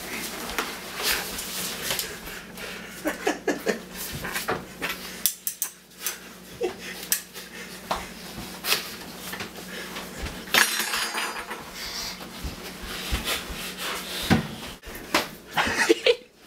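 Irregular clinks, clatter and knocks of hard objects being handled, with rustling and camera-handling noise between them.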